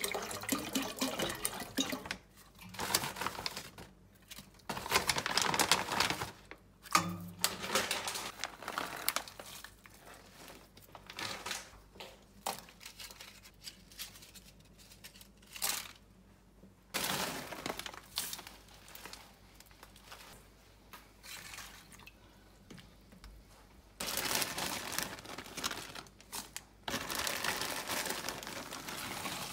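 Water poured from a large plastic bottle into a stainless-steel stockpot, then intermittent rustling and crinkling as dried kelp and other dried ingredients are handled and dropped in. Near the end a plastic bag crinkles loudly for several seconds as dried anchovies are tipped into the pot.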